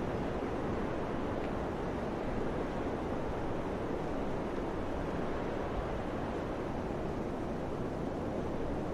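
Steady strong mountain wind blowing, with low buffeting of the wind on the microphone.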